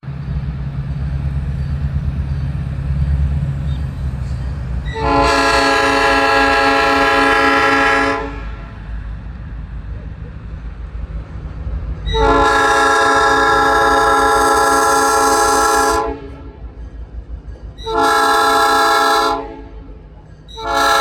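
Locomotive air horn sounding the grade-crossing signal: two long blasts, a short one, and the start of the final long one near the end, over the low rumble of the passing train.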